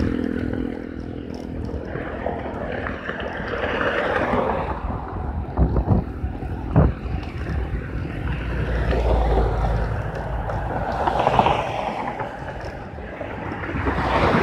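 Wind buffeting a handlebar-mounted phone's microphone while riding a bicycle, with tyre noise on the concrete, swelling and easing. A motor's hum fades out just after the start, and two sharp knocks come about a second apart near the middle.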